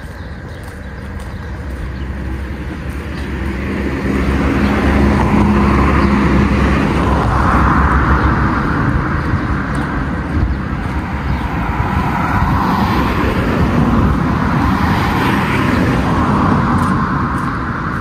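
Road traffic: car engine and tyre noise that swells about four seconds in, stays loud, and eases near the end.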